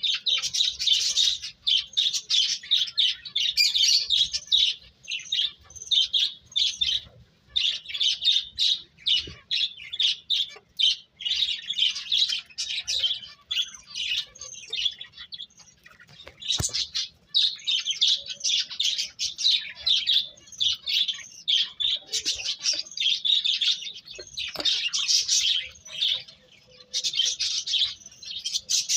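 Small birds chirping and tweeting in quick, dense runs of high notes with short pauses between them, and one sharp click about halfway through.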